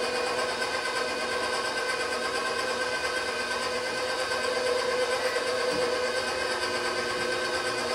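KitchenAid stand mixer motor running steadily at one speed, a constant whine with several steady tones, as the flat beater turns dry bread-dough ingredients in the steel bowl.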